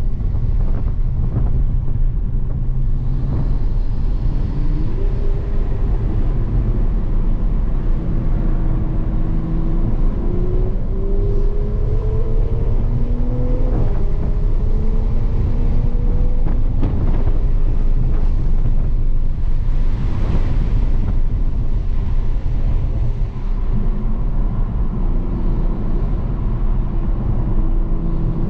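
Toyota GR Supra heard from inside the cabin under hard track driving. The engine note rises several times as the car accelerates, dropping back at each shift, over a heavy low rumble of road and wind noise.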